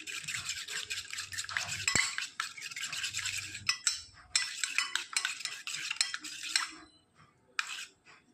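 A spoon stirring a thick mix of honey, ground black pepper and shallot juice in a small bowl, scraping and clinking against the bowl. It pauses briefly about four seconds in and stops about seven seconds in.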